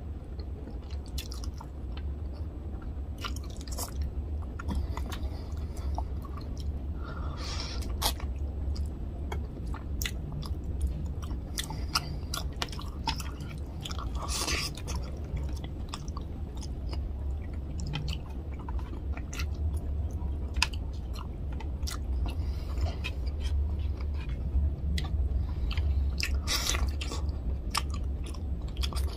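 Close-miked chewing of a mouthful of tilapia fish curry and rice, with frequent short sharp mouth clicks, over a steady low hum.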